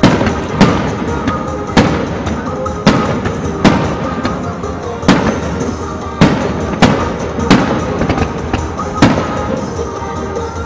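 Small aerial firework shells bursting, about ten sharp bangs at uneven spacing, over music played through loudspeakers for the show.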